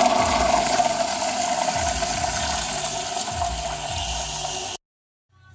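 Stock electric in-tank fuel pump module from a Dodge Ram Cummins running in a bucket, with a steady whine. Low gurgling pulses come about once a second as the emptied basket lets it suck air. It cuts off abruptly about five seconds in.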